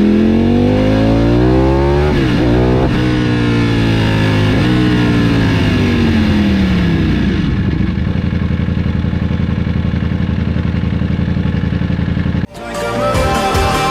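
Ducati Panigale V4's Desmosedici Stradale V4 engine revving: the pitch rises, drops, rises again and falls away, then it settles into a steady idle with an even pulse. Music cuts in suddenly near the end.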